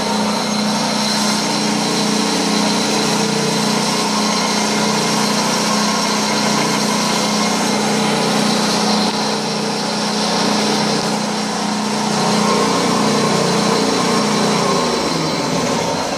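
Freshly rebuilt General 130 thickness planer, its motor and cutterhead running free with no board, at its first start after the rebuild. It runs steadily and begins to slow near the end as it is switched off; the owner likes the sound of it.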